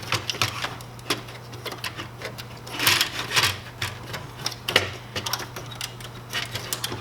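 Irregular plastic clicks and rattling as the printer's door and its wiring are handled and worked free, with a denser clatter about three seconds in, over a steady low hum.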